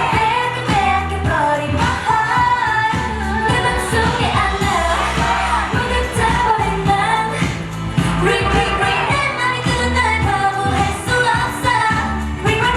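K-pop song with female group vocals singing over a bass-heavy dance beat.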